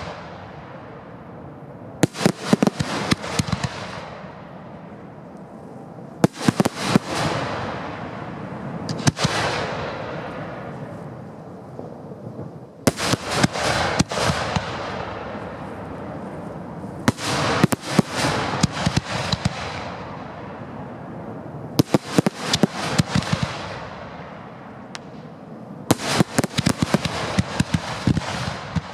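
Aerial fireworks bursting overhead in volleys of rapid sharp bangs about every four seconds, each volley trailing off in a fading hiss.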